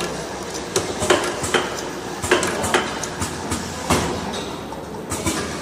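Cosmetic jar capping machine running: a steady mechanical hum under irregular sharp clicks and clattering knocks, several a second at times.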